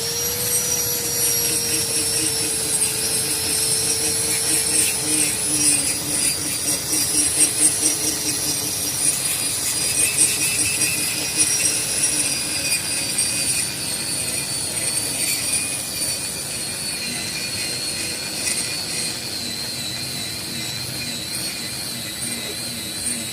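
Handheld electric power tool running at high speed and cutting into ceiling material: a steady high whine that sags slowly in pitch under load, over a rasping cutting noise.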